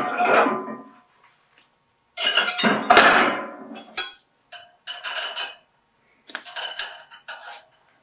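Iron weight plates clanking and scraping against each other as they are lifted and set down onto a stack: a series of loud metallic clanks with ringing, the plates adding load to a knife-lock test rig.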